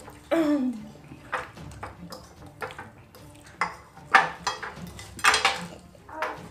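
Metal forks clinking and scraping against ceramic plates in scattered, irregular strikes, the sharpest a little past the middle. A short vocal murmur with a falling pitch comes about half a second in.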